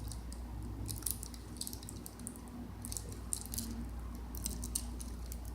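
Fingers picking at the foil-and-plastic backing of a rubber bicycle tube patch, giving soft scattered crinkles and ticks over a steady low hum.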